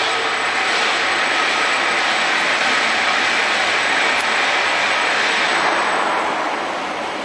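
Steady rushing noise of an automated parking tower's lift platform moving through its shaft, easing off a little near the end.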